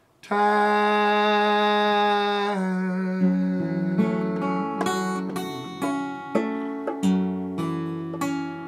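Steel-string acoustic guitar played fingerstyle: notes ring on from about the first second, then a picked line of separate plucked notes sets in about three seconds in.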